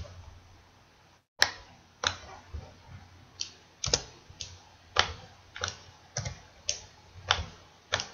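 Computer keyboard keystrokes and mouse clicks, single sharp clicks at a slow, even pace of about two a second.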